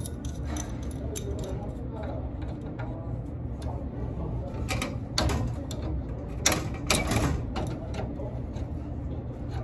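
Adjustable wrench working a brass fitting on a walk-in cooler's copper refrigerant line, with metal clinks and scrapes as it grips and turns. The loudest are a few sharp clanks between about five and seven and a half seconds in, over a steady low hum.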